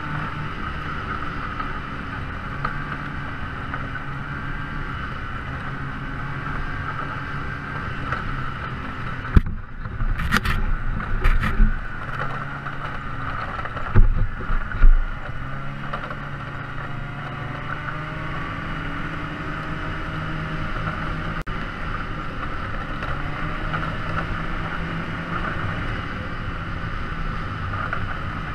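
A steady engine drone, with a sharp knock about nine seconds in and a few louder thumps a little after.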